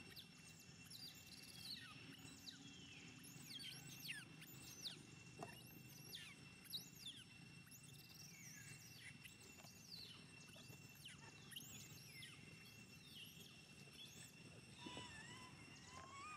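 Monkeys squealing and squeaking: faint, high-pitched calls that sweep up and down, one every second or so, some overlapping. A thin steady high tone runs underneath.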